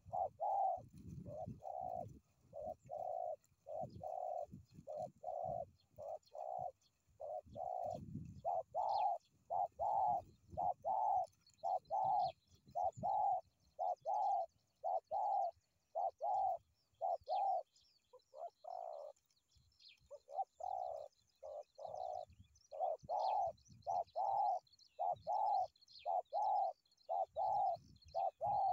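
Spotted doves cooing, a steady run of short coos one after another, broken by a brief pause about two-thirds of the way through. Small birds chirp faintly behind them.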